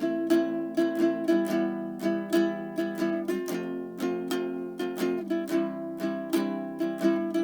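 Background music: a light ukulele tune with plucked notes.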